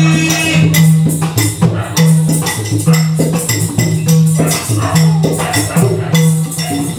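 Yakshagana accompaniment: a maddale barrel drum beating a steady rhythm, with deep strokes about once a second, under sharp metallic jingling and clicks.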